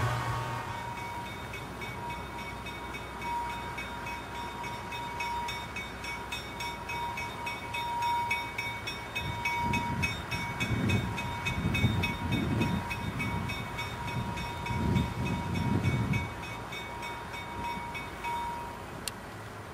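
Narrow-gauge steam locomotive pulling away from a station, a run of heavy exhaust chuffs in the middle, over a steady high ringing tone that stops near the end.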